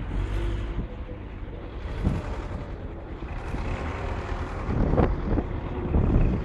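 Vehicle engine rumbling steadily, with a few knocks and rattles, the loudest about five seconds in.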